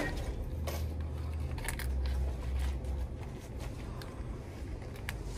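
A few short clicks and light rustling at a shop checkout counter, over a low rumble.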